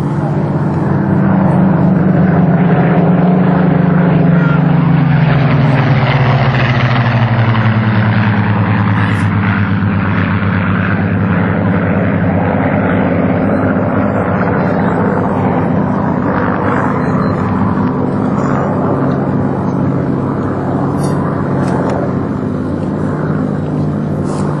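Two Supermarine Spitfires' V12 piston engines running as the pair flies past. The engine note drops in pitch between about two and nine seconds in, then goes on steadily a little quieter.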